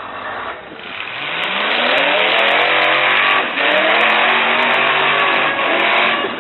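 Full-size derby truck's engine revving hard and accelerating, its pitch climbing over a couple of seconds, dropping briefly about halfway through, then climbing again before falling away near the end.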